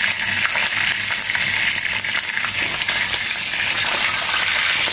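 Pieces of marinated pork sizzling in hot oil in a frying pan, a steady hiss as they brown.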